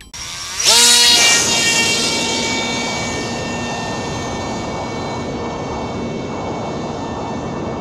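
Electric motor and propeller of a small homemade foam RC glider spinning up suddenly to full throttle, the whine rising in pitch, then running steadily and fading as the plane flies away.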